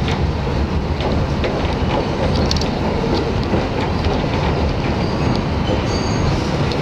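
R62A subway train running at speed through a tunnel, heard from inside the car: a steady rumble of wheels on rail with scattered clicks over the rail joints. A brief high wheel squeal comes in a little past five seconds.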